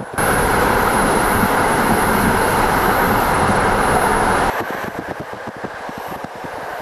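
Moving passenger train heard from on board: a sudden loud rushing roar lasting about four seconds that cuts off abruptly, then the quieter running noise with regular clicking of the wheels over rail joints.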